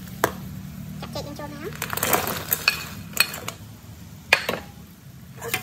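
Metal spatula clinking and scraping in a steel wok of boiling sugar syrup as fried banana pieces are tipped in, with a clatter about two seconds in and several sharp metal clinks. A low steady hum runs underneath.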